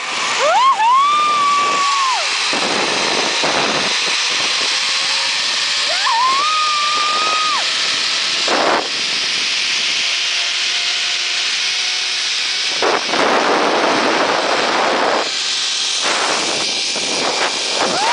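Wind rushing and buffeting over the microphone on a fast zipline ride. A woman lets out long held high whoops over it, one about half a second in and another around six seconds.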